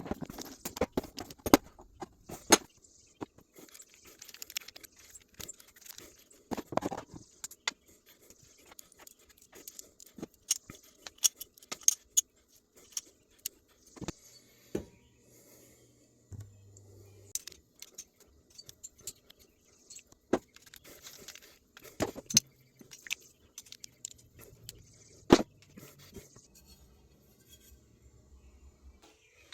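Small metal parts and tools being handled during work on a bandsaw: irregular clinks, taps and light scrapes with short pauses between them.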